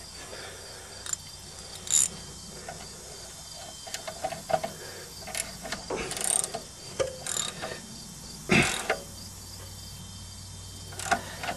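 Scattered metallic clicks and clinks of a wrench working on metal, with a few short ringing clinks and one louder knock about eight and a half seconds in.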